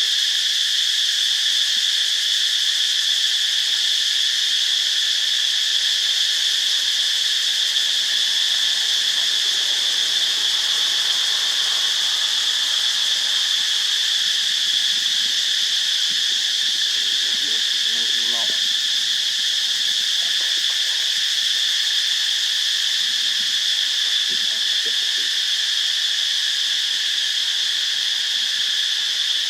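Dense insect chorus: a steady, unbroken high-pitched drone.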